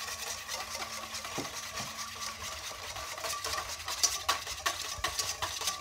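Wire whisk beating egg yolk in a stainless steel mixing bowl: quick, ticking scrapes of the wires against the metal, growing denser about halfway through, as oil is added a few drops at a time to form a mayonnaise emulsion.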